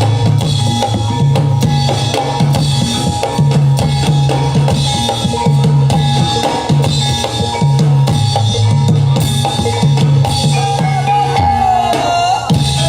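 Live reog accompaniment music: drums beat a fast repeating rhythm under a long, held high melodic line that wavers and bends near the end.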